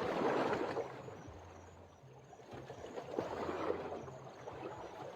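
Water washing in repeated surges, swelling and fading about every two and a half seconds, like small waves lapping, with a faint low hum underneath.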